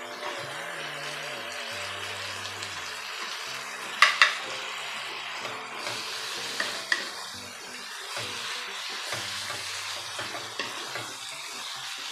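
Pork and kimchi sizzling in a non-stick wok while a wooden spatula stirs and scrapes through it. About four seconds in come two sharp knocks of a utensil against the pan, with a few lighter taps later.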